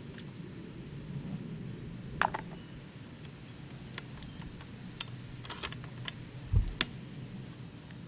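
Scattered sharp metallic clicks and one dull thump from handling and loading a bolt-action .45 muzzleloader, under a steady low hum.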